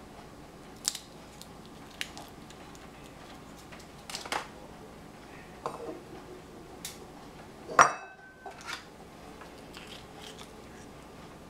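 Kitchen dishes and utensils clinking and tapping now and then while food is prepared. About eight seconds in comes one louder clink, with a short ring after it.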